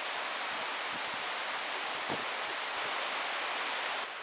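Steady, even rushing of forest ambience, with a faint footfall on the rocky trail about two seconds in; the rushing drops a little just before the end.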